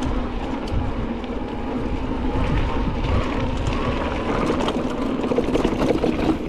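Wind buffeting the microphone of a mountain bike's ride camera, mixed with tyre noise from rolling over a dry dirt trail and scattered small clicks and rattles from the bike.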